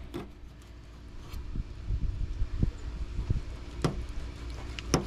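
Fillet knife cutting out the rib bones of a black drum fillet on a stainless steel table: a handful of sharp clicks and knocks from the blade on bone and steel, over a steady low hum.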